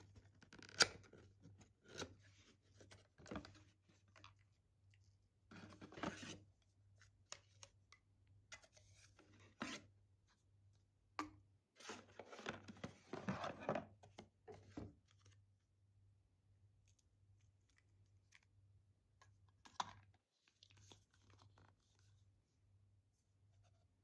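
Faint close-up handling of a small cardboard box being opened and emptied: cardboard flaps scraping and paper rustling, with a longer stretch of rustling about halfway through. Scattered light clicks and taps come from small plastic soap-dispenser parts being handled and set down.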